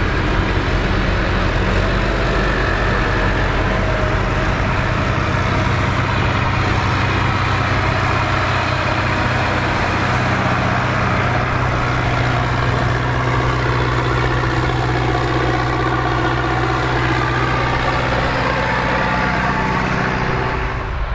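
Massey Ferguson tractor engine running steadily and loudly under load while pulling a plough; its note shifts a little about halfway through.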